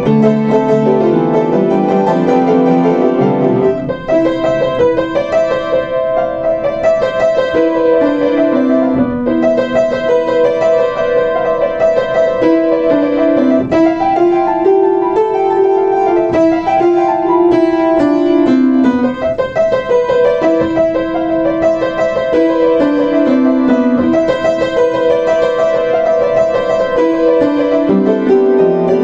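Solo Yamaha U1J upright piano played with the keys held steady: repeated middle-register notes over a lower melody that moves up and down. The deep bass notes drop out about four seconds in.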